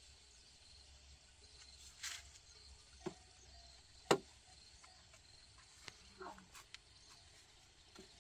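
Bamboo poles being handled and set upright, giving a few scattered light knocks and clicks, the sharpest about four seconds in. A faint steady high-pitched hiss runs underneath.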